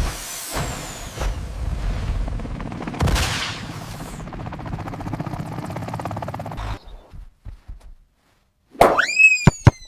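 Cartoon sound effects: a dense, rapid rattling crackle over a low hum lasts several seconds, then trails off into a few clicks. A springy boing comes near the end.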